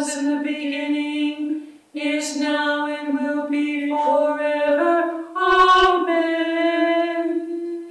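A woman singing a slow unaccompanied liturgical chant, her voice holding long notes in two phrases with a short breath about two seconds in.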